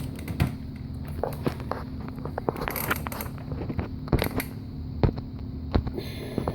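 Ratchet wrench clicking in short, irregular runs of sharp metal clicks as it is worked back and forth on a tight alternator bolt of a Honda GL1800, over a steady low hum. The bolt is getting tighter and it is unclear whether it is still turning.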